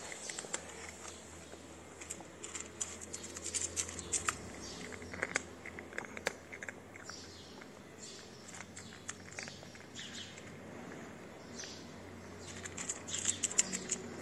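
A tabby cat eating dry kibble from a ceramic plate, with a run of quick, irregular crunches and clicks as it chews and picks up pellets.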